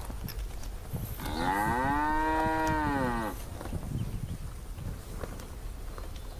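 A cow mooing once: a single drawn-out moo starting about a second in, lasting about two seconds, its pitch rising slightly and then falling away at the end.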